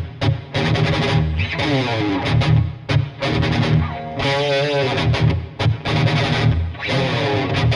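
Epiphone Dot ES-335 semi-hollow electric guitar played with distortion: choppy strummed chords and riffs with short gaps between them, and a held note with wide vibrato about four and a half seconds in.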